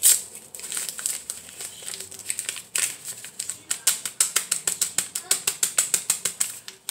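Brown paper bag crinkling and rattling as it is shaken to empty crushed cracker crumbs into a bowl. The shakes come fast, several a second, in the second half.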